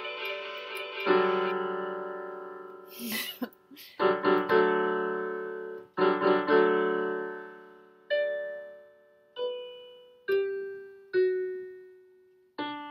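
Casio CTK-720 electronic keyboard on a piano voice, played by hand: a few full chords left to ring and fade, then single notes stepping down in pitch, spaced further apart toward the end. A short rustle sounds about three seconds in.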